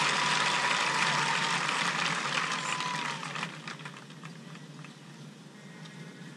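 Stadium crowd cheering and applauding, dying down about three and a half seconds in to a low background murmur.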